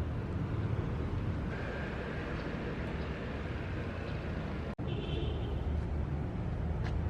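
Steady low rumble of a moving car, road and engine noise, which cuts out for an instant just before five seconds in.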